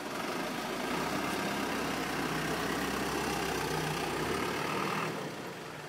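Small delivery truck's engine running steadily as the truck moves off, its hum dropping away about five seconds in.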